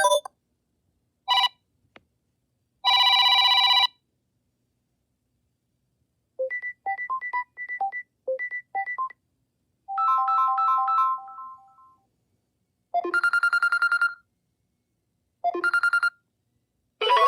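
Samsung Galaxy A03s ringtones previewed one after another: short electronic melodies and chimes, each cut off after a second or two with silence between. A fuller tune starts near the end.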